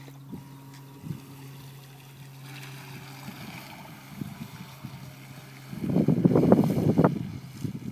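A radio-controlled model runabout's motor running with a steady hum that fades as the boat moves away across the water. About six seconds in, a loud rough rumble of wind buffeting the microphone lasts about a second and a half.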